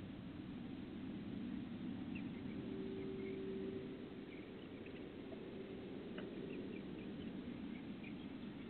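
Backyard chickens making faint scattered short calls and clucks over a steady low hum, heard through a Ring Spotlight security camera's narrow-band microphone.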